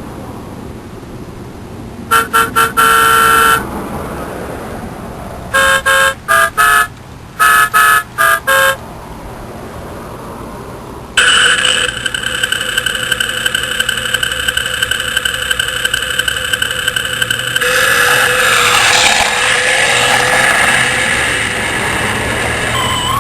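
Scion car horn sounding: a few quick taps and a held blast, then a string of short toots. Then the car alarm goes off, a steady rapidly pulsing tone that switches about six seconds later to a warbling tone.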